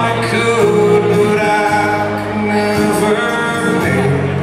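A man singing a country song with his own acoustic guitar accompaniment, amplified live through a PA.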